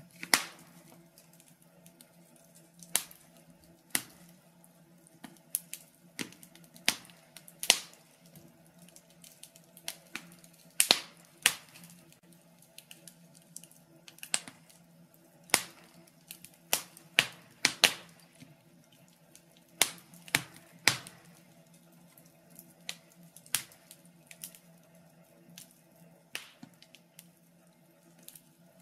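Wood fire crackling in a stove: irregular sharp pops and snaps, a few of them loud, over a steady low hum.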